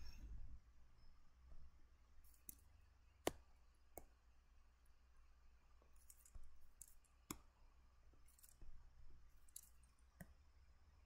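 Faint, irregular clicks and short scratchy strokes from computer drawing input, over a low steady hum. There are about five sharp clicks, the loudest about three seconds in.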